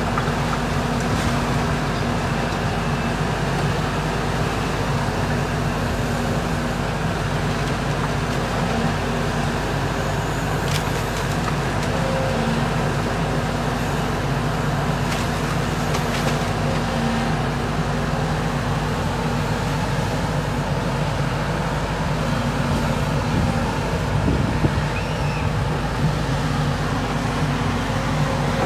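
Volvo tracked excavator's diesel engine running steadily as it works on a demolition site, with a few faint knocks partway through.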